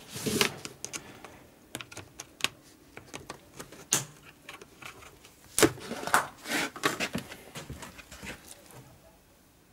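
Lid of a plastic tub of marinated meat being worked and pried open: irregular sharp plastic clicks and crackles, loudest around four and six seconds in, thinning out near the end.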